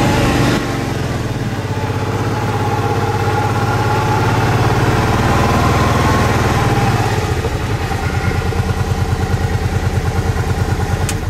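Utility-vehicle engine running steadily, then settling into a slower, evenly chugging idle about seven seconds in.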